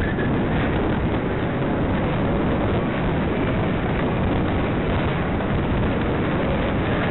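Steady, heavy wind rush buffeting a jockey-worn camera's microphone as the horse moves at pace over the turf.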